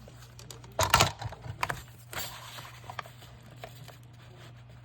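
Paper and card being handled on a tabletop: a loud rustle and knock about a second in, a shorter paper rustle a second later, then a few small taps.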